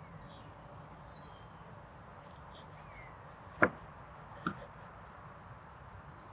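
A single sharp knock about three and a half seconds in, then a softer tap a second later, over a low steady background with a few faint high chirps.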